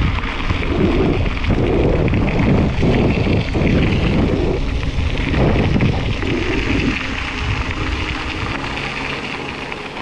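Wind buffeting the microphone: a loud, uneven low rumble that eases off somewhat after about seven seconds.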